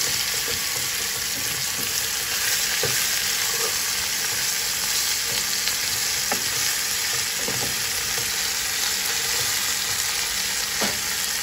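Spice-coated chicken pieces sizzling with a steady hiss as they fry in hot oil in a pot, stirred with a wooden spatula, with a few light knocks along the way.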